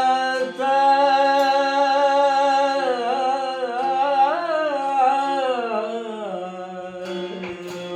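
A singer holds one long note of a devotional kirtan melody over a steady drone. About three seconds in the note bends up and down in an ornamented run, then glides down and fades. A few sharp drum strikes come near the end.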